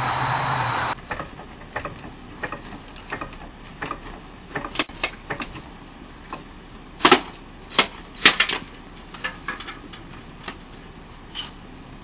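Irregular sharp clicks and metallic knocks from people working with tools under a parked Toyota Prius, the loudest few coming about seven to eight and a half seconds in. Before that, a steady hiss stops abruptly about a second in.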